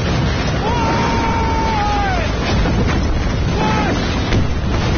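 Battle sound effects: a loud, continuous din of explosions and fire. Over it a man yells one long cry that holds steady and then falls away at the end, and a second, short cry follows a little past the middle.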